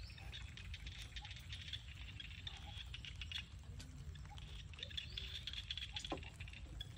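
Quiet outdoor ambience: a dense, faint, rapid ticking and pattering over a steady low rumble, with one brief sharper sound about six seconds in.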